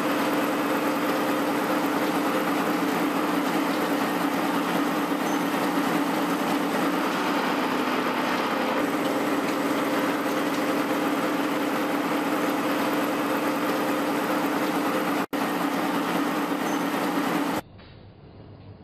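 Heavy CNC vertical mill-turn machine cutting a steel forging: a loud, steady machining hum with a low tone running through it. It breaks off for a split second a few seconds before the end, then drops suddenly to a quieter, duller machine hum.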